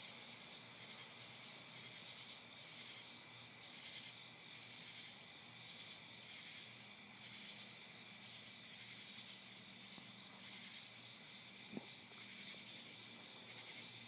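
Owl giving short, repeated hisses every second or two, the last one louder near the end, over a steady chorus of night insects.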